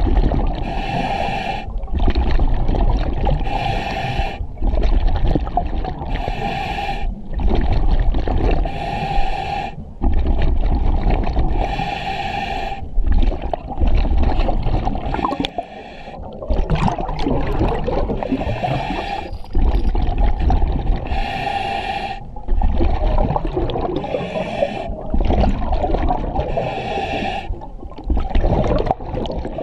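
Diver breathing on scuba through the demand regulator of an EXO-26 full-face mask. Each inhalation through the regulator is a hiss, and each exhalation is a gurgle of bubbles, repeating about every two to three seconds. About halfway through, the breathing turns less regular, with longer bubbling.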